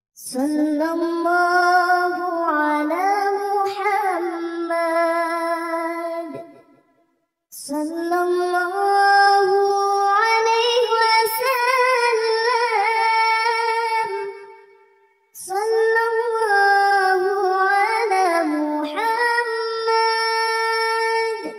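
A high, unaccompanied voice singing a shalawat, a devotional chant praising the Prophet, in three long melismatic phrases with held, ornamented notes and brief pauses for breath between them.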